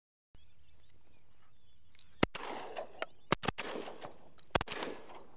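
Shotgun blasts at ducks flying overhead, about five shots: a single shot about two seconds in, then two quick pairs from two guns firing almost together, each shot followed by a short echo.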